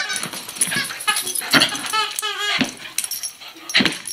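Dogs barking in a few sharp yaps while a new squeak toy squeaks in quick runs.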